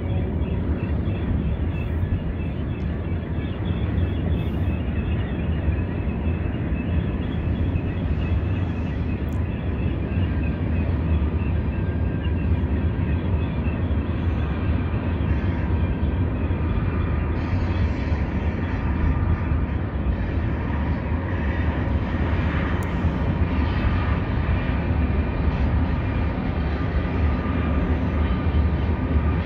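Freight trains rolling past: a steady low rumble of railcars on the rails, with faint high steady tones above it. Late on, a BNSF diesel locomotive on a second track adds to it and the sound grows a little brighter.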